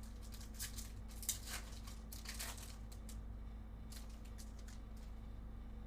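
Foil wrapper of a Bowman Chrome trading-card pack crinkling and tearing as it is opened, in scattered soft crackles over the first four seconds.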